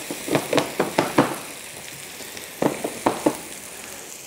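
Fried potatoes with bacon and onions sizzling in a hot frying pan, with a utensil knocking against the pan in quick strokes, about four a second, for the first second or so. After a short gap, three more knocks come about three seconds in.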